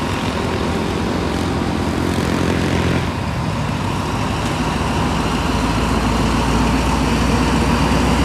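Diesel locomotive engine running with a steady low drone, growing louder over the second half.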